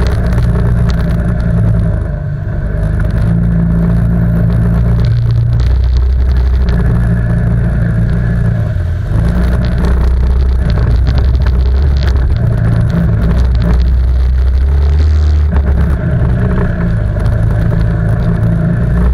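ATV quad's engine running loudly under changing throttle, its low drone easing off about two seconds in and again around nine seconds before picking back up, with scattered clattering knocks over it.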